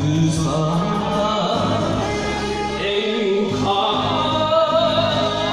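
A man singing an enka song into a karaoke microphone over the karaoke backing track, with wavering held notes in the second half.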